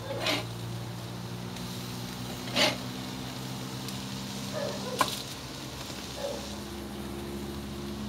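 Metal spatula scraping and knocking against a cast-iron grill grate as patties are flipped, a few short scrapes and clacks with the loudest about two and a half seconds in, over a steady low hum.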